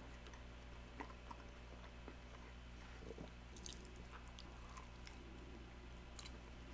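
Faint chewing and small wet mouth clicks of a person eating, over a steady low hum.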